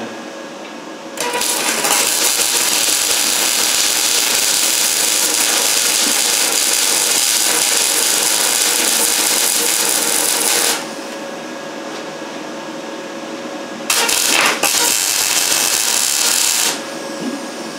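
MIG welding arc crackling steadily on steel door frame sections, in two runs: a long bead of about nine and a half seconds starting about a second in, then after a short pause a second run of about three seconds that sputters as it starts.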